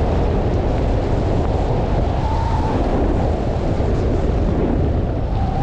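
Steady, loud wind noise buffeting the microphone during a fast descent down a snowy slope in a snowstorm.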